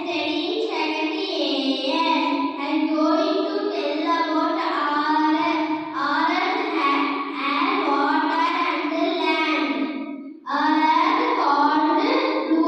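A boy singing into a handheld microphone, one voice holding notes that step up and down, with a short pause for breath about ten seconds in.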